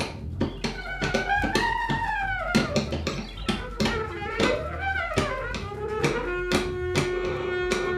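Free-improvised music for saxophone, turntable and synthesizer: a rapid, irregular stream of clicks and knocks under a pitched line that slides up and down, with a steady held tone joining about six seconds in.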